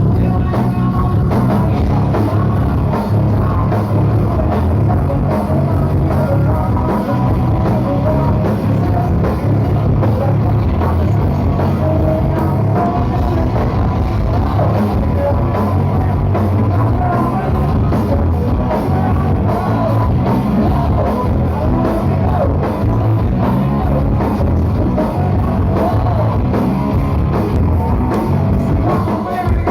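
Rock band playing a song with a drum kit, amplified instruments and a singing voice, loud and steady throughout.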